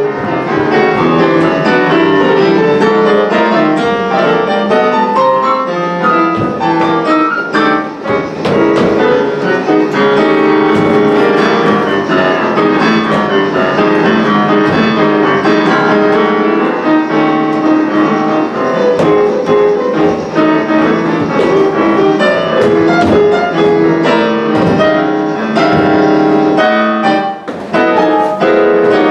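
Piano music played with quick, dense runs of notes that go on without a break.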